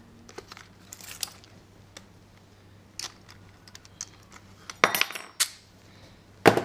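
Metal clinking and clacking as a reciprocating saw and a pair of pliers are handled at the blade end during a blade change: a few light clicks, a cluster of loud clacks about five seconds in, and one more loud clack near the end.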